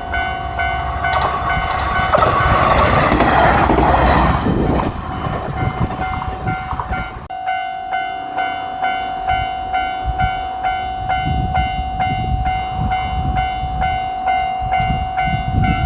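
Japanese level-crossing warning bell clanging in a steady rhythm, about two strikes a second. JR Shikoku 1500-series diesel railcars pass over the crossing, and their engine and wheel noise swells up loudest a couple of seconds in, then dies away under the bell.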